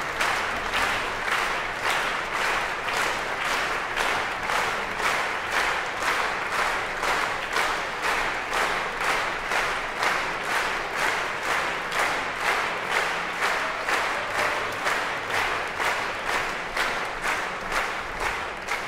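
Concert audience clapping in unison, a steady rhythmic applause of about two claps a second, beginning to thin near the end.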